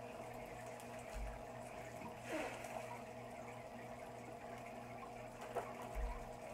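Aquarium water bubbling over the steady electric hum of the tank's pump, with a couple of light bumps about two and six seconds in.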